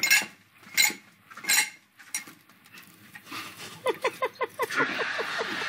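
A few sharp ringing knocks or clinks about three-quarters of a second apart, then a quick run of laughter about three and a half seconds in, giving way to studio audience laughter near the end.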